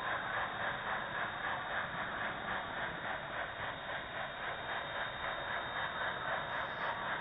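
Model train running along the track, heard up close from a wagon at the front of it: a steady mechanical whirr of the wheels on the rails and the locomotive's motor.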